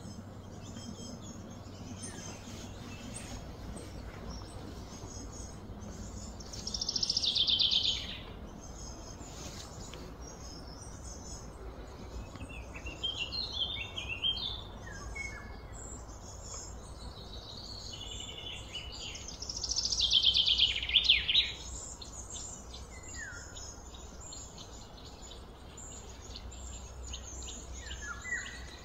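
Outdoor ambience of birds calling and insects: two loud high trills lasting one to two seconds, about 7 and 20 seconds in, short falling chirps in between and near the end, over a steady low background rumble.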